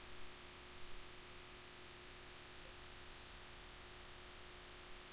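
Faint recording noise floor: a steady hiss with a low electrical hum and a thin steady tone. A couple of faint clicks come in the first second.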